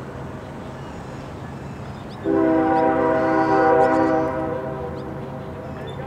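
Diesel freight locomotive's horn blows loud about two seconds in, a steady chord of several notes held about two seconds and then trailing off. Under it runs the steady rumble of the train.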